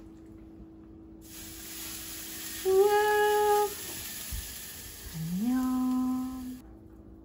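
A voice humming two long held notes: the first higher, the second sliding up from low before it settles.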